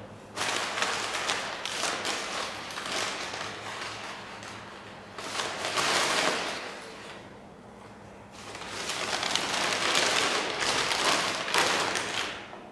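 McDonald's paper takeout bag rustling and crinkling in three long bouts as hands open it, rummage inside and pull out a cardboard burger box.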